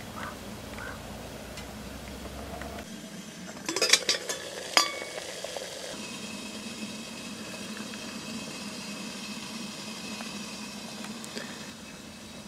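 Wood fire burning in a small folding steel twig stove under a pot, a steady hiss. A few sharp clinks with a short ring come about four seconds in, the loudest sounds, and wind rumbles on the microphone in the first few seconds.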